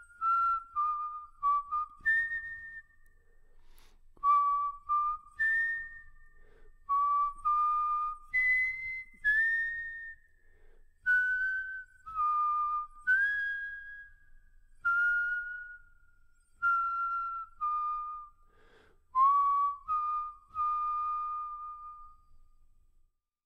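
Solo cello playing a slow, melancholy melody high in its range, thin whistle-like notes one at a time with short slides into some of them; the last note dies away near the end.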